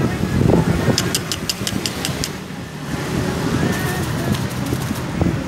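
An engine running steadily, a low rumble, with a quick run of sharp high ticks about a second in.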